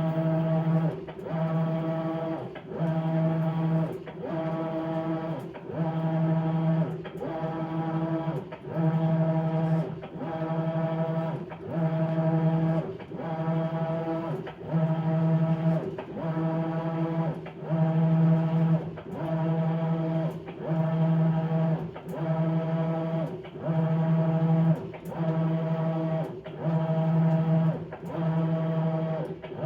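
Maytag Bravos XL top-load washer's drive motor humming through an agitation phase while washing bedding. It starts and stops in a steady rhythm about every two seconds as it turns the wash plate back and forth.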